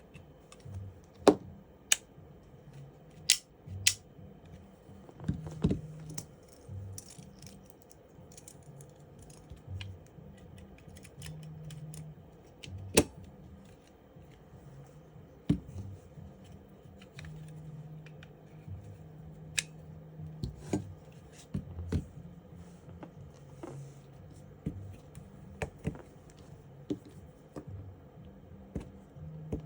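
Scattered sharp clicks and taps of small parts being handled and fitted into a Glock pistol frame by hand, with a few louder snaps.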